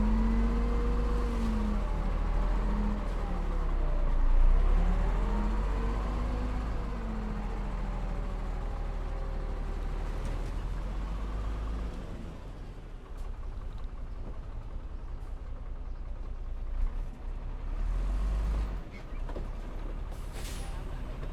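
Heavy diesel engine of earth-moving machinery working, its pitch rising and falling with a deep rumble under it; it eases off about halfway through. A short air hiss comes near the end.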